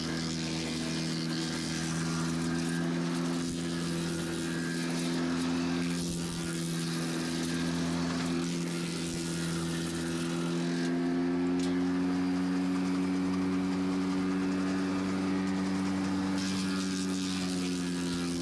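Vermeer BC600XL wood chipper's gasoline engine running steadily at high speed, its pitch rising slightly about halfway through.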